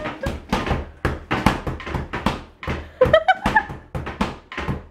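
A quick, uneven series of knocks and thumps on a kitchen refrigerator, about two to three a second, as a man pushes against its door. A short high voice squeaks about three seconds in.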